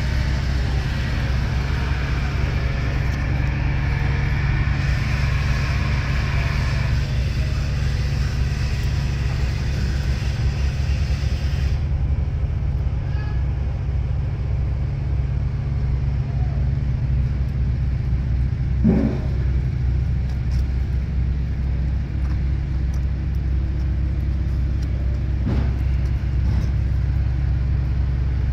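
Caterpillar C7 7.2-litre inline-six turbo diesel of a Chevrolet C6500 truck idling steadily. For the first twelve seconds a hiss sits on top, then cuts off. There is a single knock about two-thirds of the way through.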